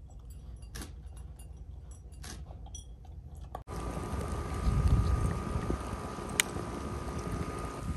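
Great Pyrenees puppy crunching dry kibble from a bowl, a few sharp crunches over a quiet background. About three and a half seconds in, the sound cuts abruptly to wind rumbling on the microphone, loudest around five seconds in, with one sharp click near the end.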